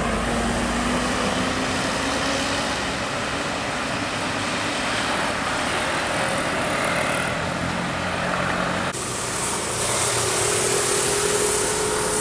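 Road traffic with large buses and trucks passing close by: engine and tyre noise, with an engine note rising over the first couple of seconds. About nine seconds in, the sound turns abruptly brighter and hissier, with a steady tone near the end.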